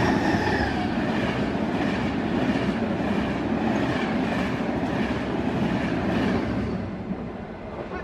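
Locomotive-hauled Intercity Notte passenger train passing at speed: steady rushing wheel-on-rail noise with a repeated clatter of the coaches' wheels over rail joints, dying away about seven seconds in as the last coach goes by.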